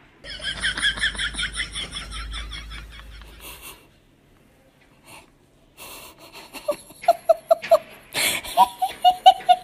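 A person laughing: first a high, wheezy giggle in quick pulses, then after a short pause a run of rapid short laughs that carries on to the end.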